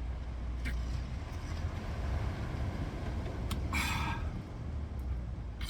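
Steady low rumble of strong wind, with a short rustling noise a little under four seconds in.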